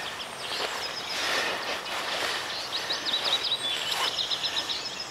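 Outdoor ambience with a small songbird singing a run of quick high chirps, busiest in the second half, over a steady background hiss. There is faint rustling as the angler bends down.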